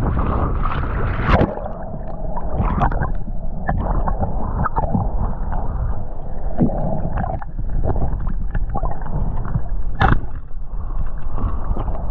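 Muffled underwater sound picked up by a camera held below the surface: a steady rush of water with gurgling, broken by a few sharp knocks, the loudest about a second and a half in and another late on.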